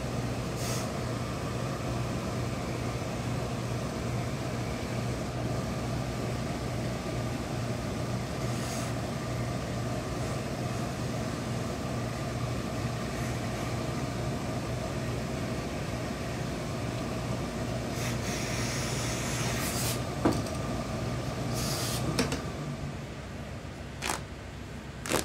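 Steam pressing with a hose-fed industrial steam iron: a steady low machine hum from the pressing equipment, with several short hisses of steam. The hum stops a few seconds before the end, followed by a few light clicks as the cloth is handled.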